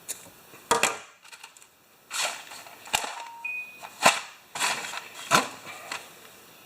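Repeated sharp strikes and scratches, about four crisp clicks spread over several seconds, from trying to get a flame going to melt the cut end of a nylon starter rope.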